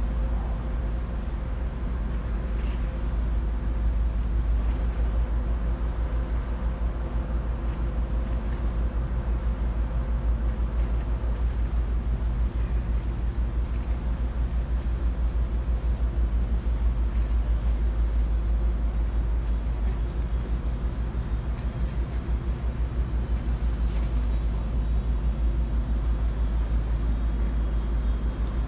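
Steady low rumble of ship diesel machinery with a faint constant hum, under wind buffeting the microphone.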